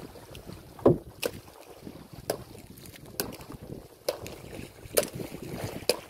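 Irregular knocks and taps of fishing gear against a wooden outrigger boat, roughly one a second, over a steady wash of wind and sea.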